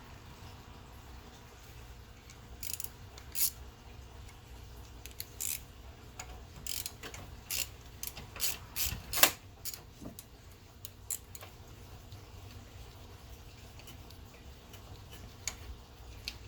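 Hand socket ratchet clicking in short, irregular bursts while undoing 8 mm bolts on the radiator, with sharp metal ticks. The loudest click comes about nine seconds in, and the clicking stops after about eleven seconds.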